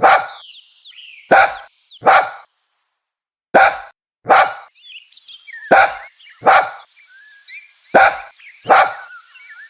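A dog barking in pairs, woof woof, about nine barks in all, with faint bird chirping in the background.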